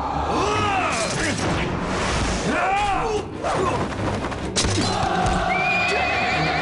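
Battle sound effects: several men yelling and shouting in a fight, a sharp crack about four and a half seconds in, then a steady held musical tone with a high wavering cry over it.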